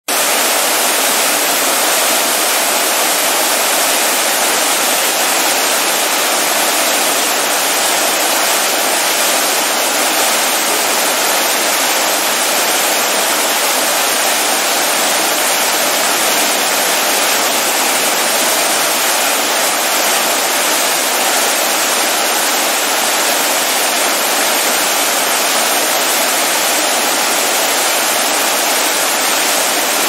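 Water fountain splashing: a steady, unbroken wash of falling water that does not change.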